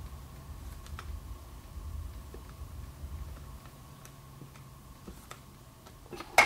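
Scattered light clicks of metal parts from a 5HP24 automatic transmission's clutch drum assembly being handled and taken apart, over a steady low hum; one sharp, loud knock near the end.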